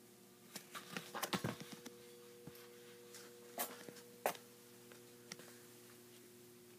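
Scattered short clicks and taps, loudest in a cluster about a second and a half in and twice near four seconds, over a faint steady hum.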